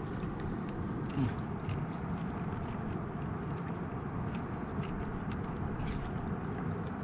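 Striped bass frying in oil on a disco (plow-disc griddle): scattered small crackles and pops over a steady low rushing noise.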